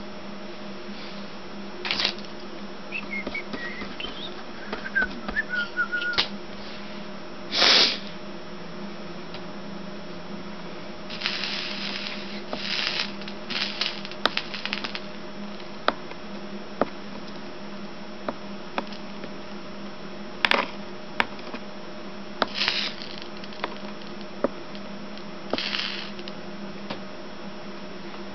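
Soldering iron sizzling in short bursts as it melts solder and flux along the lead lines of a stained glass panel, the loudest burst about eight seconds in, with scattered sharp clicks and taps between. A steady low hum runs underneath.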